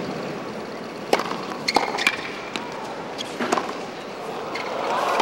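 Tennis rally on a hard court: a racquet strikes the ball several times, in sharp pops spaced roughly half a second to a second apart, over a low crowd murmur that swells again near the end.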